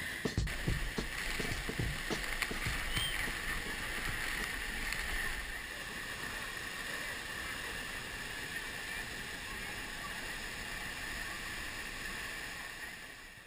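Steady rushing noise of the Tororó waterfall's falling water, with a few low thumps in the first couple of seconds, fading out at the end.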